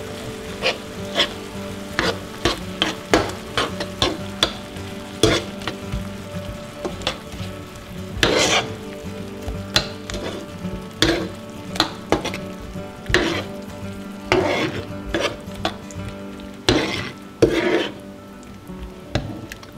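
A spoon stirring and scraping mushrooms in a cream sauce around a frying pan, with irregular strokes about one or two a second. The hot sauce sizzles underneath.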